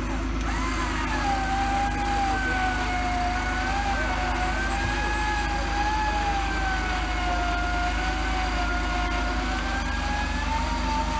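Electric winch on a flat-fender Willys Jeep whining steadily under load, its pitch wavering slightly, over the low hum of the Jeep's idling engine. The whine starts about half a second in and stops near the end.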